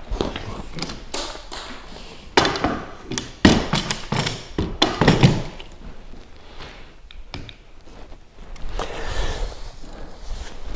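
Handling noise from a kayak's fabric skin being worked during hand stitching: rustling and scraping of the fabric with a few taps and knocks. A cluster of louder bursts comes a few seconds in, and a softer patch near the end.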